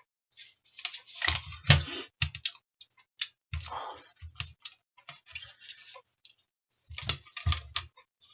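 Irregular clicks, taps and short scrapes of a graphics card being handled and worked on during disassembly. They come in three clusters: about a second in, in the middle, and near the end.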